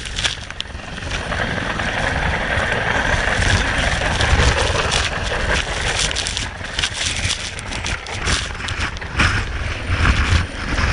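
Loud wind buffeting on a body-worn camera's microphone from a hovering helicopter's rotor downwash, over the helicopter's steady engine and rotor noise, with spray off the churned sea.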